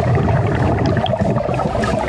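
Muffled underwater noise from a scuba diver's breathing regulator and exhaled bubbles, a steady gurgling rush with small crackles and ticks.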